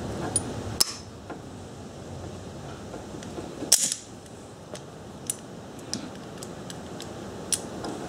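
Vice grips (locking pliers) clicking and clinking on metal while a fitting is crimped onto a cable's aluminium swage fitting: a scattering of sharp metal clicks, the loudest a clack about four seconds in.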